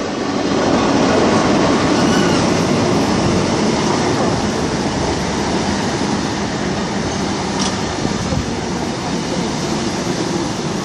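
Locomotive-hauled passenger train led by Class 90 electric locomotive 90012 rolling past along the platform as it pulls into the station: a steady rumble and rattle of wheels on the rails.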